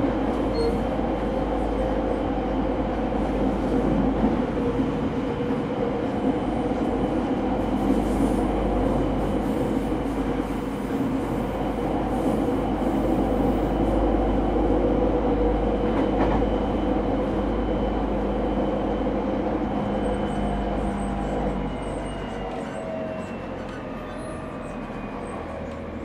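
In-car running sound of a JR 209 series 0 commuter EMU motor car with its original, un-renewed traction equipment: steady noise of wheels rolling on rail with the drive's hum. It grows a little quieter over the last few seconds.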